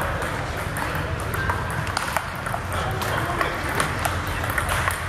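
Table tennis rally: the celluloid ball clicking sharply off rubber-covered paddles and the Donic table top, several irregular clicks a second, mixed with clicks from rallies at neighbouring tables and a low hum of the hall.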